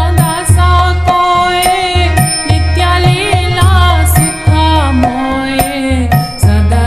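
Slowed-down, edited Hindu devotional bhajan: a voice sings a wavering, ornamented melody over repeated deep bass thuds and sharp drum hits.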